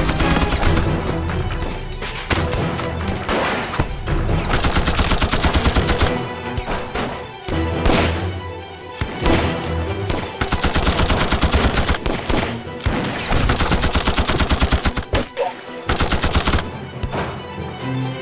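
Movie battle gunfire: rapid bursts of machine-gun fire mixed with single rifle shots, several bursts one after another, over dramatic background music.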